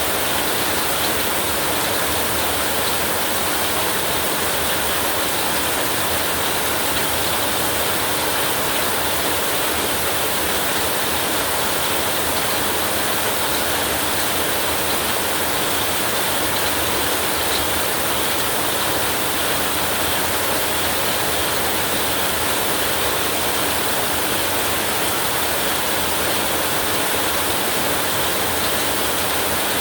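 Heavy rain falling steadily, an even hiss with no thunder.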